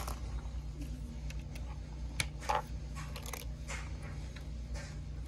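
Plastic LEGO pieces clicking and rattling as they are handled and fitted together: a few scattered sharp clicks over a steady low hum.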